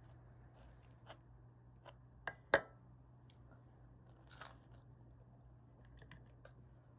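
A metal knife set down on an enamel plate: two sharp clinks about two and a half seconds in, the second louder and ringing briefly, among a few soft taps, with a short scrape a couple of seconds later.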